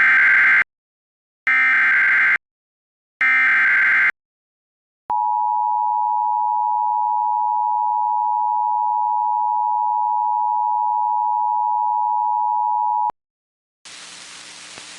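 Emergency Alert System activation: three roughly one-second bursts of SAME header data tones encoding a severe thunderstorm warning. After a short pause comes the EAS two-tone attention signal (853 and 960 Hz), held steady for about eight seconds and cutting off sharply. Faint hiss comes in near the end.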